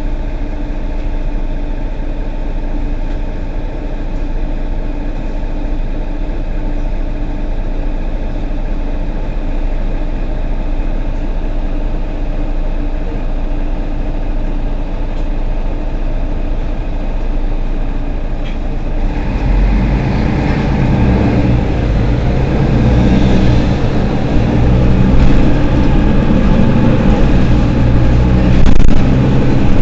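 Mercedes-Benz Citaro G C2 articulated bus engine idling steadily, then about two-thirds of the way through it revs up and gets louder as the bus moves off. A brief knock comes near the end.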